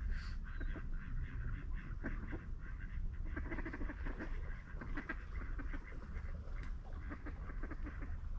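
Waterfowl calling in a rapid, irregular run of short calls, over a steady low rumble.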